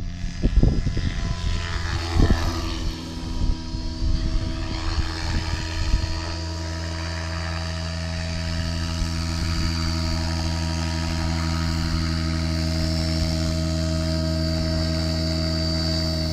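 Radio-controlled model helicopter flying low and setting down on the grass, its motor and rotor giving a steady hum with a high whine. Gusts of wind buffet the microphone for the first six seconds.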